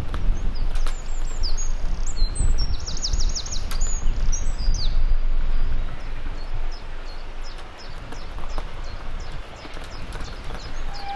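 Small songbirds chirping and singing in quick high notes over a steady low rumble outdoors, the rumble easing about halfway through.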